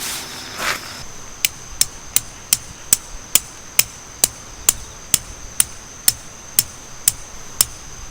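Hammer driving a metal tent stake: about fifteen sharp metallic strikes, two to three a second, slowing slightly toward the end.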